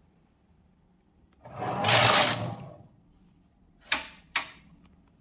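Silver Reed knitting machine carriage sliding once across the needle bed and knitting a row, a rushing rattle that swells and fades over about a second and a half. With the partial-knitting cams bent, the carriage now knits the needles properly. About four seconds in come two sharp clicks.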